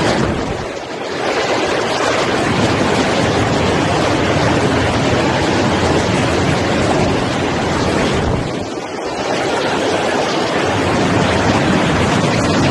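Water spraying and rushing from the spray bars of a stainless-steel chicken-feet peeling and washing line, together with the running machine: a loud, steady rushing hiss that dips briefly twice.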